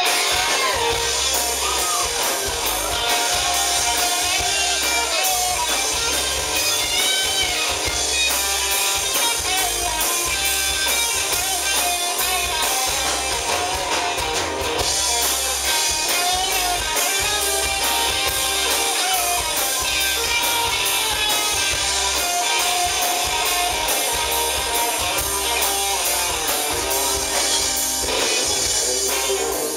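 Live rock band playing with a steady drum beat: strummed acoustic guitar, electric guitar, bass guitar and drum kit, with no singing.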